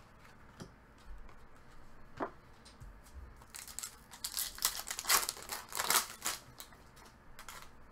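Hands handling trading cards and card-pack wrappers: a few faint ticks, then a run of rustling, scraping noises from about three and a half seconds in until just before the end.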